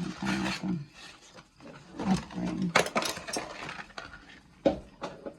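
Plastic light-switch cover plate and switch hardware being handled and fitted by hand: a few sharp clicks and knocks, a cluster a couple of seconds in and another near the end, with some low muttering.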